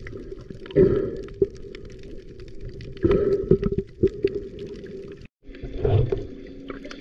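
Muffled underwater sound recorded through a camera housing while snorkeling: a steady low hum with bursts of splashing and bubbling about a second in, around three seconds and near six seconds. The sound breaks off briefly a little past five seconds.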